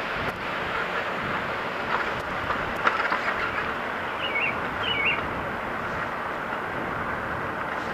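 Steady rushing noise of a bicycle rolling along a paved trail, with a couple of light clicks and two short bird chirps about halfway through.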